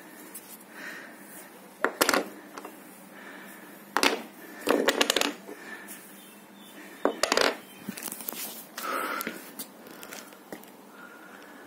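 Sharp metallic clinks and knocks, a few at a time about two seconds apart, with a quick cluster about halfway through: small iron weight plates and collars being handled on a tiled floor.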